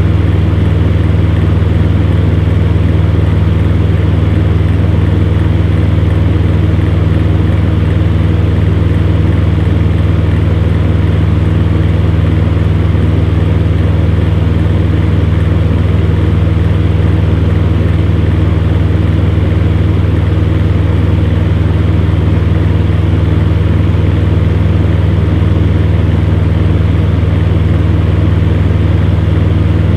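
Electric fan running steadily: a constant low hum under an even rush of air.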